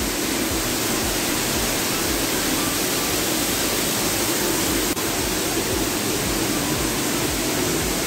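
Man-made waterfall spilling down artificial rock beside the walkway, a steady rushing hiss of falling water. A single brief click about five seconds in.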